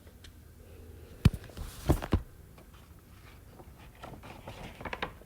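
A sharp knock, then two more knocks close together about a second later, with a few faint ticks afterwards, over a steady low hum.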